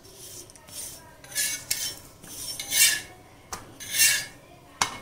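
Metal spatula scraping and tapping against a dosa griddle while turning a ragi chapati: about four short scrapes and a couple of sharp clicks.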